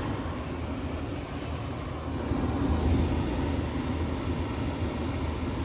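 Frigidaire dehumidifier running, a steady low hum with the rush of its fan. The unit is out of refrigerant, so it runs without dehumidifying.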